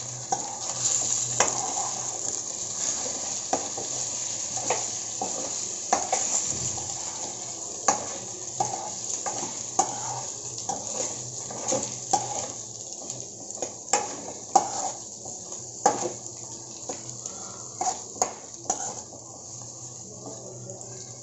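Eggs and onions frying in oil in a nonstick kadai, with a steady hiss. A metal spoon scrapes and taps irregularly against the pan as the eggs are broken up and stirred. The sizzle grows a little quieter near the end.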